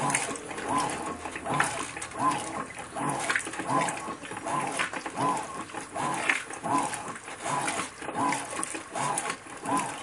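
Electrolux Ecologic 12 kg (LEC12) top-load washing machine in its wash agitation, the agitator swinging back and forth through a full tub of towels and bed linen. The drive gives a short whine that rises and falls with each stroke, about one every three-quarters of a second, over churning water.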